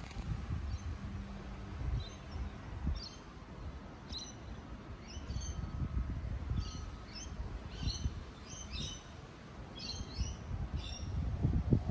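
Birds calling in short, repeated chirps, more and more often through the second half, over the low rumble of wind buffeting the microphone, which gusts up near the end.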